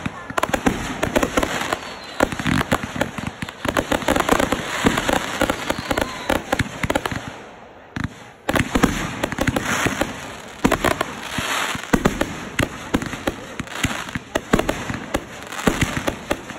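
Backyard consumer fireworks going off in quick succession: a dense run of bangs and crackling. The firing thins out briefly around seven seconds in, then picks up again with a sharp bang.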